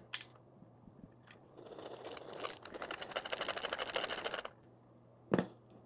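Plastic ammo bottle of water-soaked gel balls being jiggled and shaken in a gel blaster magazine's fill port, making a fast clicking plastic rattle for about three seconds in the middle. A few light plastic clicks come before it and one short knock comes near the end.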